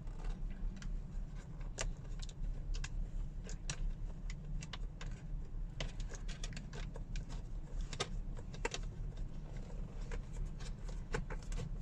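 Irregular sharp metallic clicks and taps of a small ratchet with a short extension undoing the Torx screws that hold a car's dashboard sat-nav screen, over a low steady hum.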